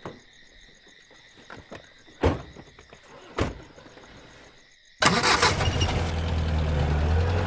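Crickets chirping, with two car doors shutting about two and three and a half seconds in; about five seconds in a car engine starts and keeps running.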